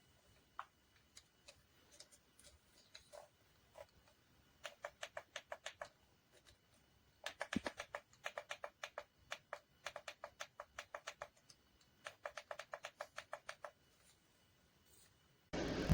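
Rapid, evenly paced small clicks, about six a second, in three runs of a second or more each, with a few scattered single clicks before them. Near the end a sudden loud burst of noise cuts in.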